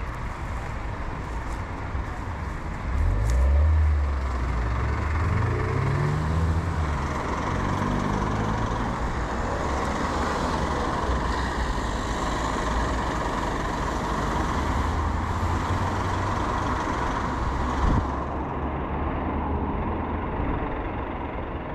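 Motor vehicle engines running, a steady low drone, with one engine rising in pitch as it speeds up about three seconds in.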